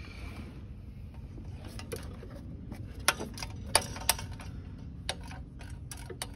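Straight ratcheting wrench clicking in short irregular runs as a fastener is worked loose, with a few sharper metal clinks about three and four seconds in.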